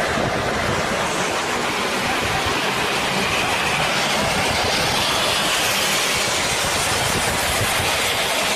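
Steady road and wind noise of a vehicle travelling at highway speed, heard from inside the cab.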